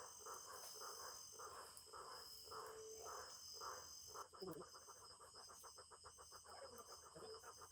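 Crickets and other night insects chirping steadily in high, pulsing trills, with a faint low rhythmic pulsing beneath that quickens to a rapid patter about halfway through.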